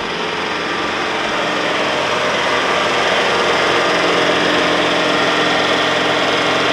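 John Deere compact tractor engine running under load as it pulls a Lewis Brothers windrower rolling chicken litter: a steady mechanical drone that grows a little louder over the first couple of seconds, then holds level.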